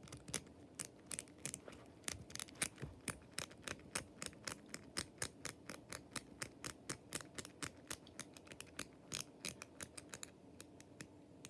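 Number wheels of a suitcase's built-in TSA combination lock being turned, clicking through their detents several times a second in uneven runs. The clicks stop shortly before the end.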